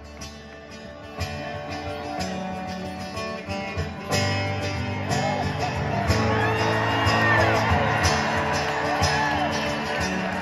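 Live acoustic guitar strumming with bass guitar, an instrumental passage between sung verses. It is soft at first and grows fuller from about four seconds in.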